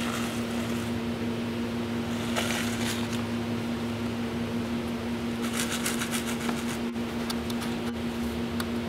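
A steady mechanical hum with two even pitches and a light hiss. Faint rapid clicks and ticks come through around the middle and again near the end.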